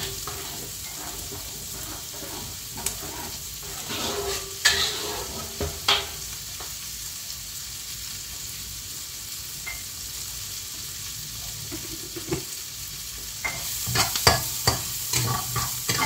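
Soup spices (garlic, onion and nutmeg) frying in hot oil in a pan on the stove, a steady sizzle. A spatula scrapes and clicks against the pan around four to six seconds in, and again more busily near the end as the sizzle gets louder.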